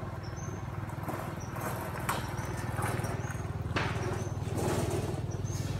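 Outdoor ambience: a steady low hum throughout, with short high-pitched chirps about once a second and two sharp knocks, about two seconds in and near four seconds.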